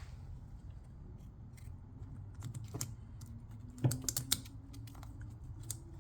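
Scattered light plastic clicks and taps, the loudest a few about four seconds in, from the connectors of an electric motorbike's wiring harness being handled.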